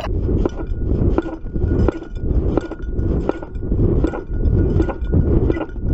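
Dog running in snow, heard from a camera strapped to its back: a thud with each stride, about every 0.7 s, with clinking metal on the harness and a steady low rumble of the mount shaking.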